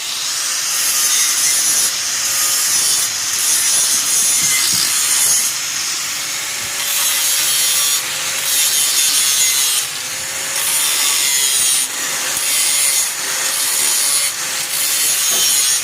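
Repeated rasping strokes of abrasive finishing on a welded metal joint, each lasting one to two seconds with short breaks between them.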